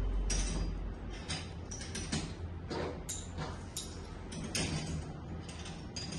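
Metal fittings on a pipe-and-bolt assembly stand clicking, scraping and creaking as they are fitted and screwed on by hand, in irregular knocks.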